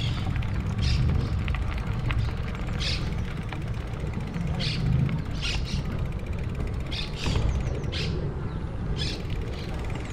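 Steady low rumble of wind and tyre noise from a bicycle ride on city streets, with short high bird chirps every second or two.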